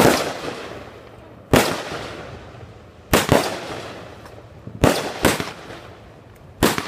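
Fireworks going off one after another: seven sharp bangs about every one and a half seconds, two of them in quick pairs, each trailing off in an echo.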